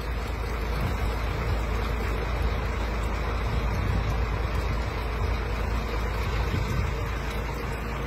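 Steady low rumble of a truck engine idling close by, with a thin stream of water from a hose splashing into a puddle.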